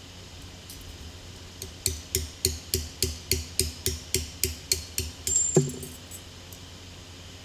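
A hand hammer strikes hot steel on an anvil in a quick, even run of about a dozen ringing blows, roughly three to four a second. The run ends in one louder clank. A steady low hum runs underneath.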